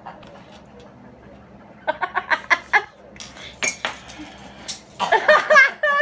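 Contents of a handbag clinking and clattering as someone digs through it, with several sharp clicks in the middle. Laughter breaks out about two seconds in and again near the end.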